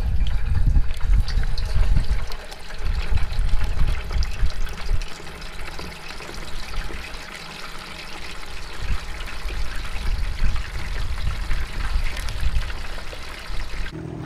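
Pieces of blue lingcod frying in a small saucepan of hot oil: a steady sizzle full of fine crackles. A low, gusty rumble sits under it, heaviest in the first few seconds.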